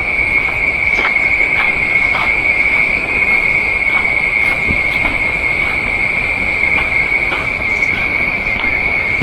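Cicadas in a steady, high-pitched, unbroken drone.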